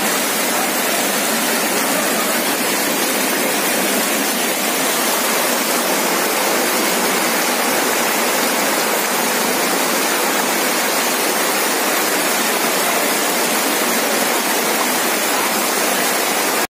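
Fast, churning floodwater rushing down a narrow street between houses: a loud, steady roar of turbulent water that does not let up.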